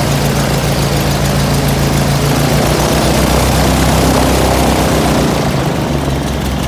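An airboat's 100 hp Subaru boxer engine running steadily at idle, with its propeller turning; the sound eases slightly near the end.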